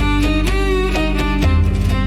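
Instrumental music: a quick run of plucked string notes with a bowed string melody swelling in vibrato about half a second in, over a low sustained drone.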